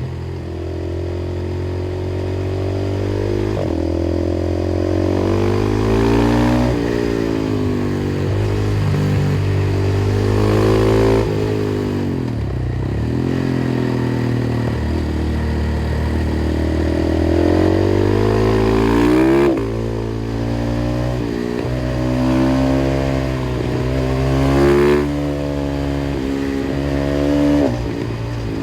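KTM 500 EXC-F's single-cylinder four-stroke engine, through an FMF exhaust, accelerating hard through the gears: the pitch climbs and drops sharply at each upshift. About twelve seconds in it falls away as the bike slows, then climbs again through several more shifts.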